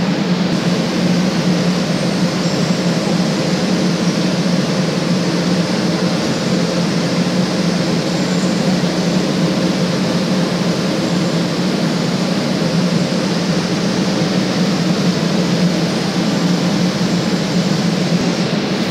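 Cable car station machinery running: a loud, steady mechanical hum with a low drone.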